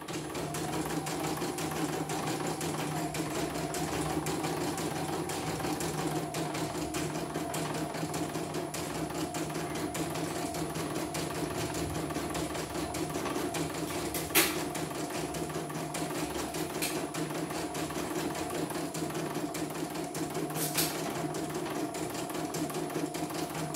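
CNY household embroidery machine stitching a design into hooped fabric, its needle mechanism running at a steady, rapid pace. A sharp click comes about 14 seconds in and a smaller one near 21 seconds.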